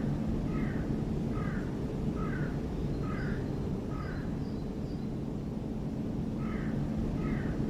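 A bird calling in a series of short notes, about one every three quarters of a second. Six come in a row, then a pause of about two seconds, then the calls start again.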